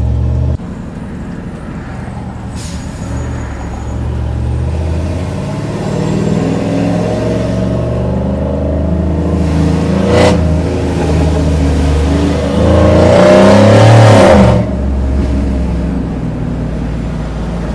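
Cammed Chevy Silverado's LS V8, heard from inside the cab, accelerating. The revs climb twice, with a brief sharp crack about ten seconds in. The loudest rising pull comes near three-quarters through, and its revs then drop off sharply into a steadier, lower drone.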